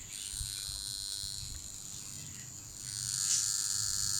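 Handheld high-frequency facial machine buzzing with a steady high-pitched electric whine, growing louder about three seconds in as its intensity is turned up.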